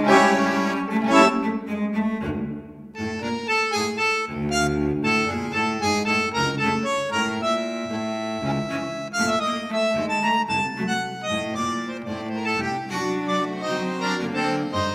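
Instrumental background music with held, changing notes, dipping briefly about three seconds in.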